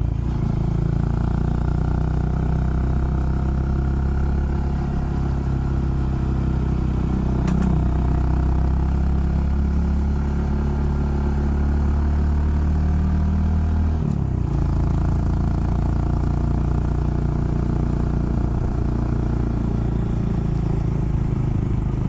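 Honda Monkey's small single-cylinder four-stroke engine running under way, heard from the bike as it is ridden, with a steady engine note. The note drops abruptly about fourteen seconds in and carries on lower.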